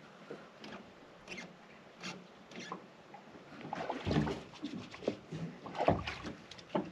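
Irregular knocks and thumps of a person shifting about in an aluminium fishing boat, against the hull and gunwale. Faint clicks at first, then louder and heavier knocks in the second half.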